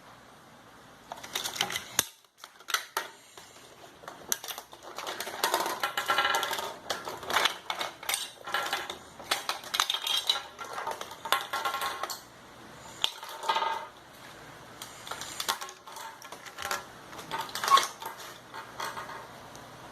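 A busy, irregular clatter of clicks and knocks, with short pitched sounds mixed in, starting about a second in and running on with brief lulls.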